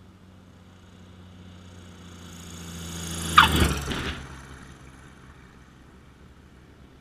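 Propeller airplane passing low overhead: engine and propeller noise swells over about three seconds, peaks with a quick drop in pitch as it goes past, then fades away.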